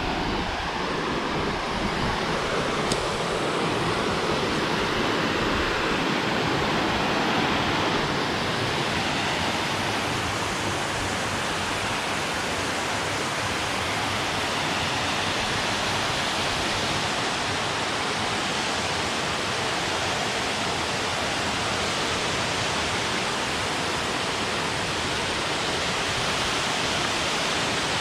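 Waterfall: water plunging down the first drop, a loud, steady rush that fills the whole sound.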